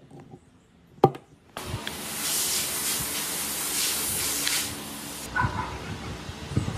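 A sharp click, then a loud steady hiss that lasts almost four seconds and cuts off suddenly, followed by faint small handling sounds.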